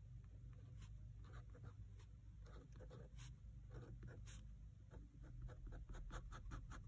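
Fine-tip Pigma Micron 01 pen scratching faintly on sketchbook paper as letters are written, the short strokes coming quicker near the end.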